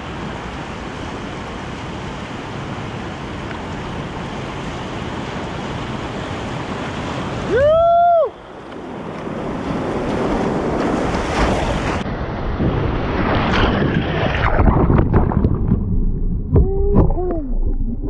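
Rushing river water and paddle splashes around a whitewater kayak. About eight seconds in a person gives one loud whoop that rises and falls in pitch, and near the end two short hoots come as the boat drops into whitewater.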